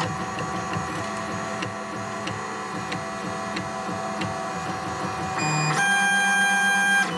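Lulzbot Mini 3D printer's stepper motors running through the start-code moves: several seconds of uneven motor noise with faint regular ticks, then a steady whine of an axis move from about six seconds in that stops shortly before the end.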